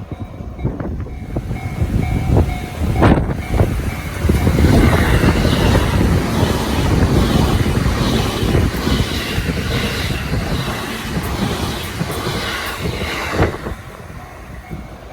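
Train passing over a level crossing: a heavy rumble with rapid clacking of wheels over the rail joints, building over the first few seconds and cutting off suddenly near the end. The crossing's warning bell rings faintly under it and is heard again once the train has gone.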